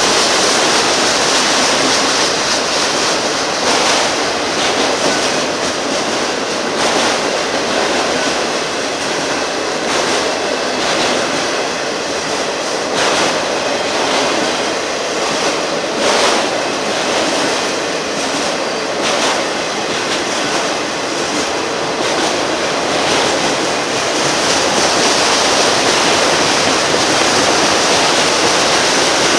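Union Pacific freight train cars rolling past, with steady rumble and hiss of steel wheels on rail, broken every few seconds by a sharp clack as wheels cross a rail joint.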